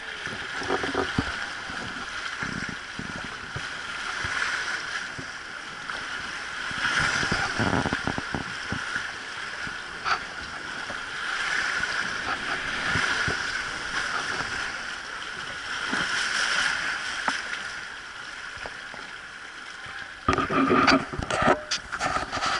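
River rapids rushing around a wooden river boat, a steady watery rush that swells and fades. Near the end a run of loud knocking thumps comes in over it.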